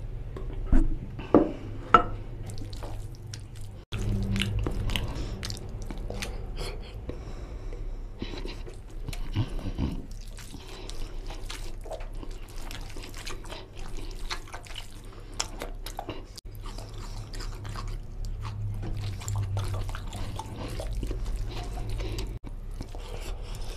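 Gravy from a glass bowl pouring and dripping onto rice, with a few sharp wet splats in the first two seconds. Then a hand squishes rice through oily mutton curry, and there is close chewing and wet mouth smacking on mouthfuls of rice.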